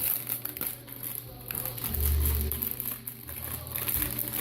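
Plastic snack packaging crinkling as a packet of Tim Tam biscuits is handled and opened, with a dull low thump about two seconds in.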